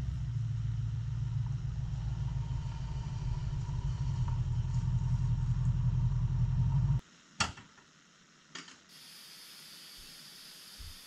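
Ford Mustang engine running as the car rolls up and idles, then switched off abruptly about seven seconds in. About half a second later a car door latch clicks open, followed by a softer click.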